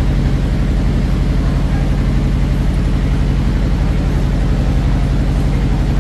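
An engine running steadily at an even speed, a low, constant throb with rapid regular pulsing.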